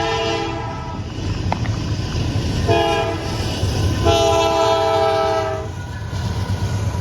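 Train horn blowing for a street crossing as the train passes: a blast ending about half a second in, a short blast near three seconds and a long blast from about four to nearly six seconds, the short-long end of the grade-crossing signal. A steady low rumble of the train runs underneath.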